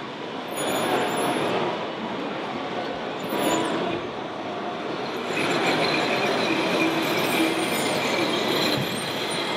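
Radio-controlled wheel loader's motors and hydraulics whining as it pushes its bucket into a soil pile, with short high squeals. A steady hall din runs underneath.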